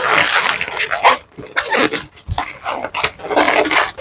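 Latex modelling balloons squeaking and rubbing against each other as they are twisted and locked together, in irregular bursts with short gaps.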